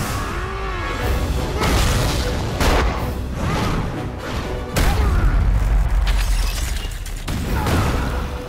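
Cartoon fight sound effects over action music: several sharp hits and crashes, then a heavy boom about five seconds in that rolls on as a low rumble for about two seconds, like a body smashing into rock.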